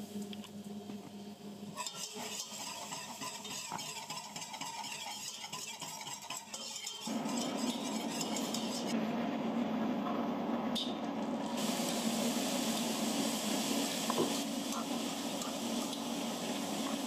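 Wire whisk stirring and scraping against a stainless steel pot while the contents sizzle, with shredded cheddar being whisked in; the sound gets louder about seven seconds in.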